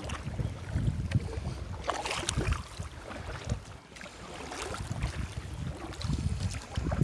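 Wind buffeting the microphone in gusts, with water splashing from kayak paddle strokes, the loudest splash about two seconds in.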